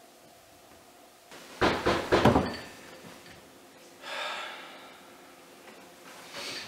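A quick series of loud knocks on a wooden front door, about four in under a second, followed a couple of seconds later by a quieter, shorter noise.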